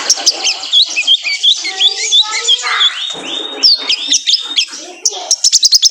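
Male kolibri ninja sunbird (konin) song: a rapid, busy twitter of short high chirps and warbling notes, ending in a quick run of sharp ticking notes.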